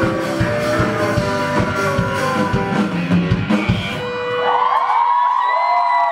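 Live rock band playing with drums and sung vocals. The drumming stops about four seconds in, a chord rings on, and the audience breaks into high-pitched screams and cheers.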